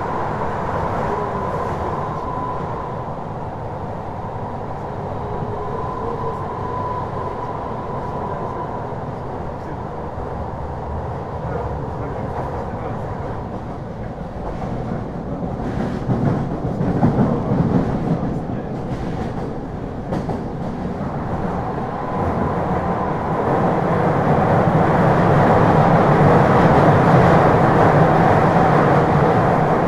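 Kyoto Municipal Subway Series 50 train running through an underground tunnel, heard from inside the car: a steady rumble of wheels on rail with a thin steady whine. It grows louder over the last few seconds.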